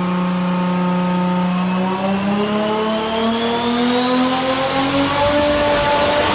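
Turbocharged car engine accelerating. Its note holds steady for about two seconds, then climbs slowly, while a high turbo whistle rises in pitch alongside it.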